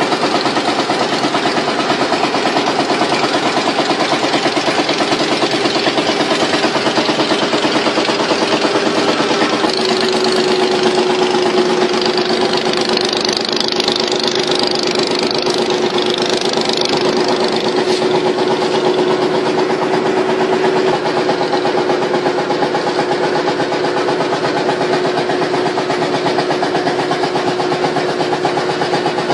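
A small wooden river boat's engine running steadily under way, loud and close, with a fast, even beat; its note shifts slightly about ten seconds in.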